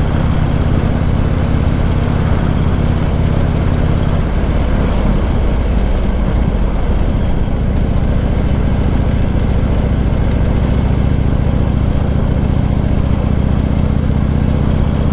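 Harley-Davidson Road King's V-twin engine pulling the sidecar outfit along at a steady speed, over a rush of wind and road noise. About four seconds in the engine note wavers and breaks up, then settles back to a steady note about three seconds later.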